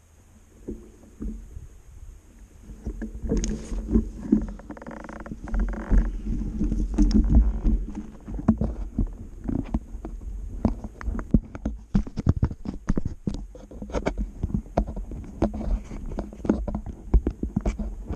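Full-suspension electric mountain bike rattling and knocking over a rough dirt trail, with tyre noise on the dirt under a low wind rumble. The knocks grow louder and more frequent about three seconds in, as the ride gets rougher or faster.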